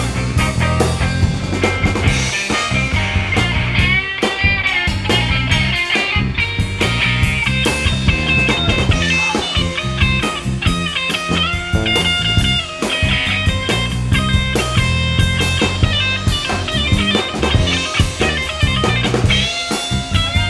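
A band playing an instrumental break with a steady beat, strong bass and a lead melody line with bending notes; no singing.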